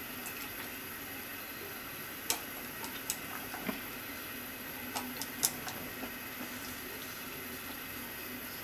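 Soup simmering in a pot, a steady soft hiss, while miso is stirred in a ladle with wooden chopsticks. The chopsticks give a few sharp clicks, the loudest about two seconds in and about five and a half seconds in.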